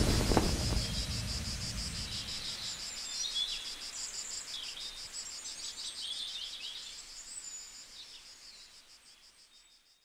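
Insects trilling in a steady, fast-pulsing high drone, with a few short falling bird chirps over it; the tail of music dies away in the first half second, and the whole sound fades out toward the end.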